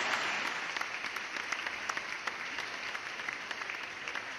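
Crowd applause with scattered individual claps, slowly dying down.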